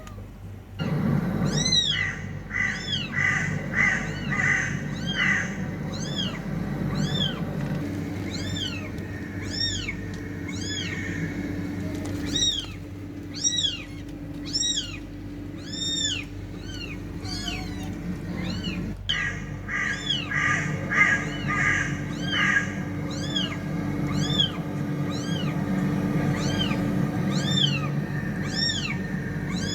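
Cat meowing over and over in short, high-pitched calls that rise and fall, about one and a half a second, with a sudden break about nineteen seconds in. A steady low hum runs underneath.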